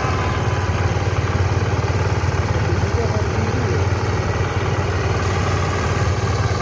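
Engine-driven Fulldoser rice threshing machine running steadily at work, a constant low engine drone with the whir of the threshing drum.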